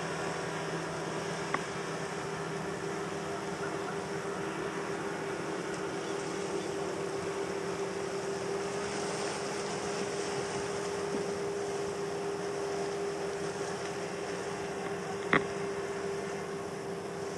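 Many outboard motorboats droning in the distance, one steady hum over a constant hiss. A sharp click comes about fifteen seconds in, with a fainter one near the start.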